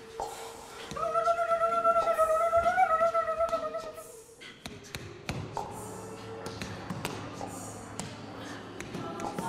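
Soundtrack music: a held, slightly wavering high note with a fast pulsing tremolo for about three seconds. It then gives way to quieter music with low sustained tones and light taps.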